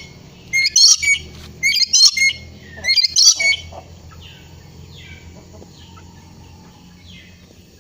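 Lory (nuri parrot) giving loud, shrill squawks in three quick bursts over the first three and a half seconds, then softer, scattered chirping calls.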